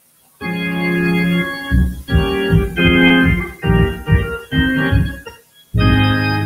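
Organ playing a short run of held chords, starting about half a second in, the chords changing every half second or so, with a brief break before a last chord near the end.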